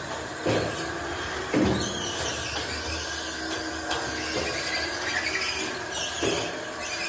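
Tracked stair-climbing machine's motor running steadily as it hauls a large refrigerator up a flight of stairs, with heavy knocks about half a second in, a second later, and near the end.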